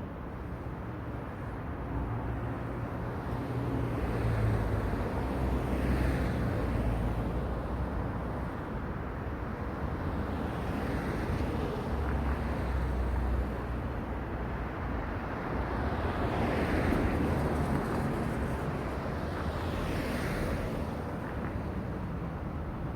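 Road traffic at a crossroads: cars pass one after another, each swelling and fading, over a steady low rumble of traffic.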